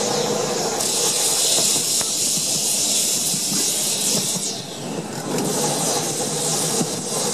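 Wind rushing over the microphone on an open toast-rack tram in motion, gusting and easing off briefly about five seconds in, over the steady rumble of the tram running on its rails.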